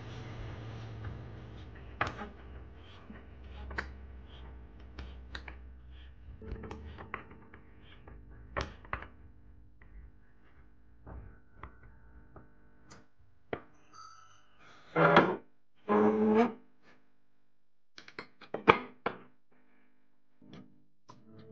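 Hex key turning the bolts in the legs of a wooden IKEA rack: scattered metal clicks and taps of the key in the bolt heads. In the second half, three loud short squeaks as the bolts are drawn tight.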